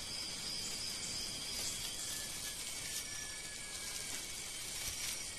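Faint rainforest ambience of insects calling: a steady hiss with several thin, unbroken high tones laid over it.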